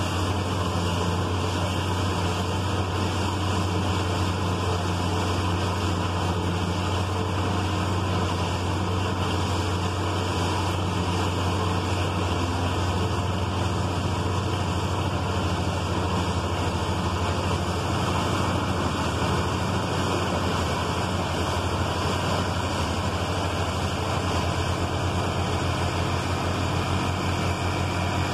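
Steady drone of farm machinery: the tractor running the old Gehl pull-type forage chopper at a constant speed, unchanging throughout.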